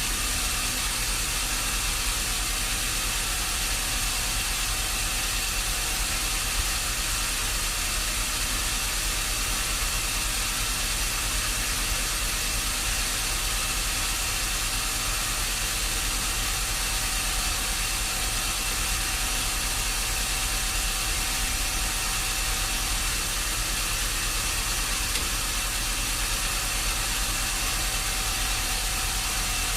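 A sawmill machine running steadily: a constant engine drone under a broad hiss, with no change in pitch or level.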